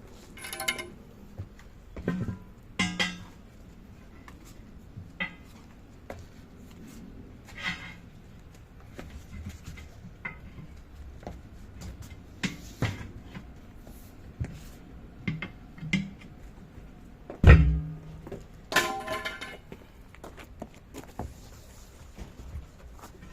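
Scattered metallic clinks and knocks of tools and metal parts being handled, with a few short ringing clangs. A single heavy thump about 17.5 s in is the loudest sound.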